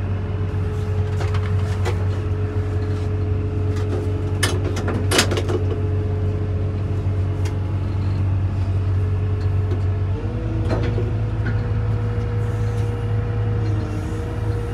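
Caterpillar M316D wheeled excavator's diesel engine idling, heard from inside the cab as a steady hum; its pitch steps up slightly about ten seconds in. A few clicks come about four to five seconds in.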